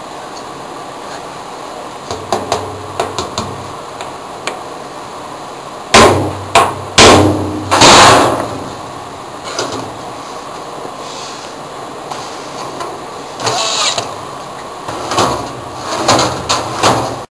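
A steel file cabinet drawer and its roller slide are being handled. There are a few light clicks, then several loud metal clunks and scrapes about six to eight seconds in, and more knocks and scrapes near the end. A steady hiss runs underneath.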